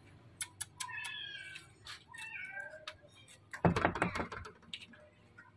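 A kitten meowing twice, each call falling in pitch. About three and a half seconds in, a loud rustle of the plastic cat-treat sachet being handled and torn open, with small clicks of plastic around the calls.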